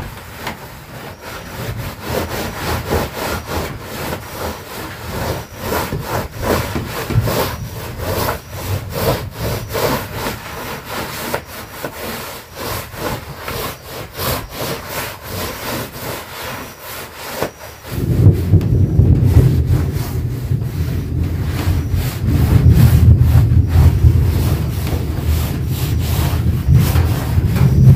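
A cloth rubbed hard back and forth over wet wooden floorboards, in quick rhythmic wiping strokes. About two-thirds of the way in, a loud, heavy low rumble joins the wiping and carries on with it.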